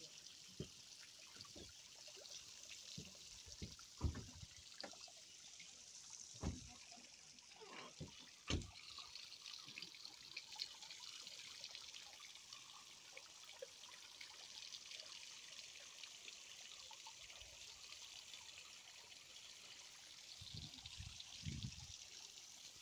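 Thin streams of water pouring from stainless-steel spouts onto metal grates and into a concrete trough: a faint, steady trickle. A few short dull thumps stand out, at about four, six and eight seconds in and again near the end.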